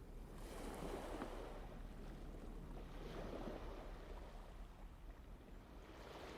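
Faint outdoor wind and water noise over a steady low rumble, swelling twice: once about a second in and again around three seconds in.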